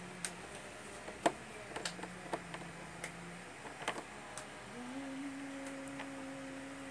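Homemade black slime being poked and squeezed with fingers in small tubs, giving scattered sharp clicks and small pops. A faint steady hum sits behind it and shifts to a higher pitch about five seconds in.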